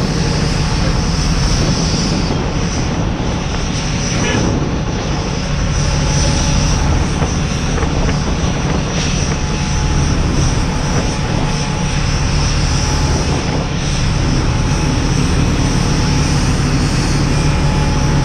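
Boeing 787-9's Rolls-Royce Trent 1000 jet engines running at idle: a steady, loud rushing drone with a low hum beneath it.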